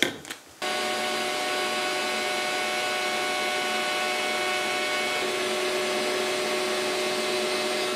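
DeWalt trim router on an Inventables X-Carve CNC machine cutting holes in plywood, running with a steady whine while the dust extractor draws through the hose on its dust boot. It starts suddenly just after the start and fades out near the end.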